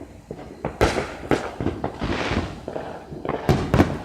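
Fireworks going off: several sharp bangs at uneven intervals, the loudest near the end, with a stretch of hiss in the middle.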